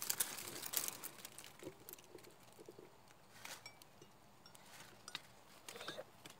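Faint handling noise of an air rifle and its gear as it is brought to aim: scattered light clicks and rustles, thickest in the first second or so and sparser after.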